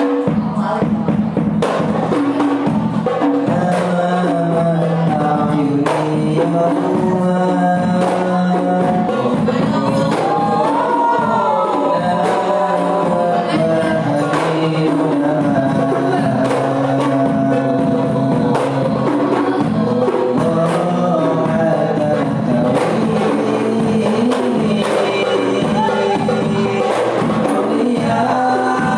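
Rebana frame drums beating a steady rhythm under group singing.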